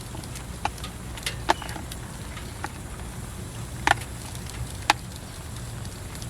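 Scattered large raindrops ticking sharply onto a tarp or tent at irregular intervals, over a steady low rumble of rain.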